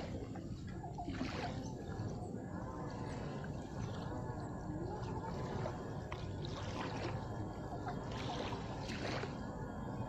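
Small splashes and dribbles of river water as a child plays with her hands at the water's edge, a few short splashes standing out over a steady low rumble.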